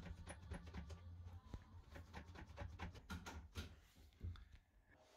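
Faint, irregular clicks and light knocks of hands working a plywood wall cabinet and the bar clamps holding it up, over a low steady hum, fading out near the end.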